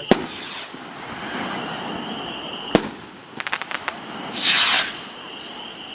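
16-ounce skyrockets going off: sharp bangs of the rocket bursts, a quick run of crackles about three and a half seconds in, and short rushing hisses.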